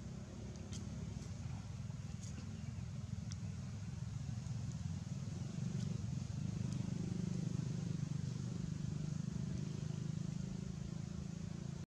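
A steady low rumble from a distant engine, growing louder about halfway through, with a few faint light ticks above it.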